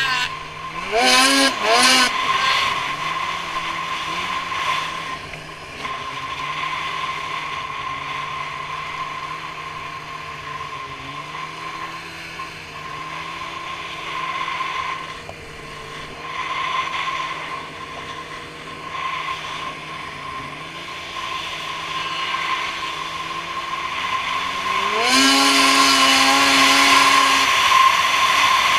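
Polaris Switchback Assault snowmobile's two-stroke engine running through a Bikeman Velocity trail can exhaust, its pitch dipping and rising with the throttle, with a steady high whine over it. Near the end it revs up and gets louder.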